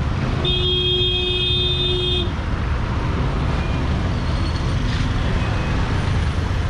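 Slow motorcycle ride in dense street traffic: a steady low rumble of engines and road noise, with a vehicle horn held once for about two seconds near the start.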